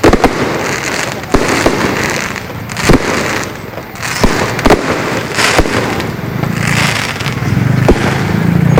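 Fireworks display going off: irregular sharp bangs of bursting shells, several seconds apart at most, over continuous crackling.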